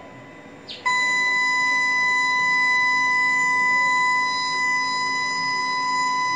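A click, then a steady, high-pitched electronic beep starts about a second in and holds at one unchanging pitch.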